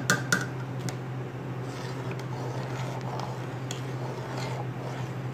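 Metal spoon stirring milk in a steel cooking pot: a few sharp clinks of the spoon against the pot in the first second, then softer stirring and scraping. A steady low hum runs underneath.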